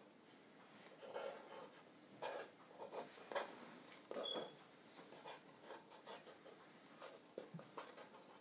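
Pencil scratching on paper on a wooden sketchboard in irregular strokes, heavier for the first few seconds and then lighter, with a short squeak about four seconds in.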